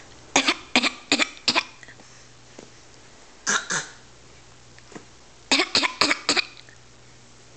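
Fake coughing: short, deliberate coughs in three bouts, four quick coughs, then two, then four more.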